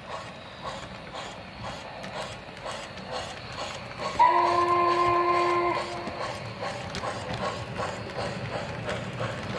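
MTH O gauge model of a B&O Y6b 2-8-8-2 steam locomotive with Proto-Sound 3 running by: rhythmic sampled chuffing from its speaker and wheels on the track. A little past four seconds in, its chime steam whistle sounds once for about a second and a half, several steady notes together.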